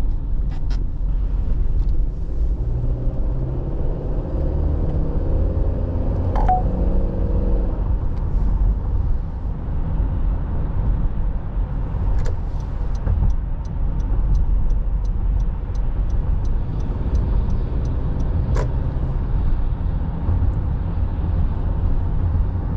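A road vehicle driving, with a steady low rumble of engine and road noise and a brief rise and fall in engine pitch early on. In the second half comes a run of evenly spaced ticks, about three a second, lasting around six seconds.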